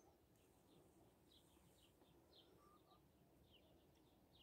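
Near silence, with faint, scattered bird chirps.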